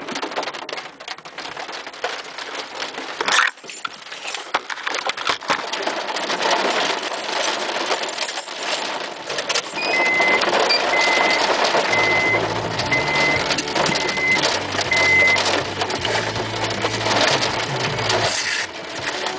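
Gusting rear-flank downdraft wind battering the microphone along with rain, then rain pelting the car from inside it. Partway through, a car's warning chime beeps six times about a second apart, and a low hum runs under the rain until it cuts off near the end.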